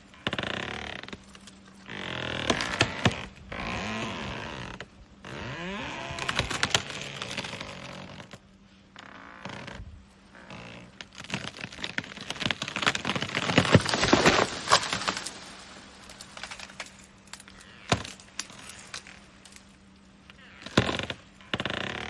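An elephant breaking up plants: leaves and stalks rustling, with many sharp cracks of snapping stems, thickest a little past the middle.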